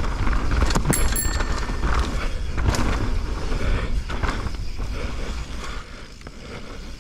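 Mountain bike riding down a dirt trail: wind rumble on the microphone, with the tyres and bike clattering over bumps in many sharp knocks. A brief high ring comes about a second in, and it goes quieter for a moment around six seconds.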